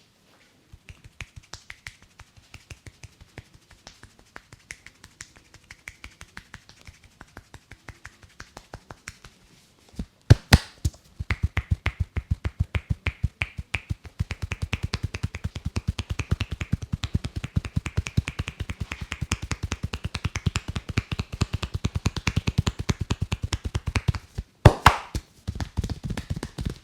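Barber's hands tapping and chopping rhythmically in an Indian head massage, a fast even run of strikes. They are faint at first and much louder from about eleven seconds in. Two pairs of loud sharp snaps come about ten seconds in and again near the end.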